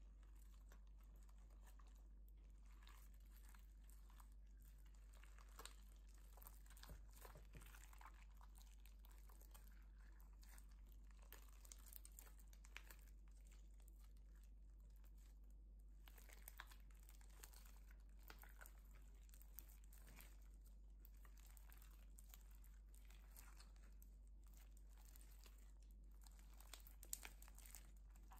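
Faint, irregular crackling and popping of clear slime packed with foam beads being squeezed and stretched by hand, a few louder pops near the end, over a low steady hum.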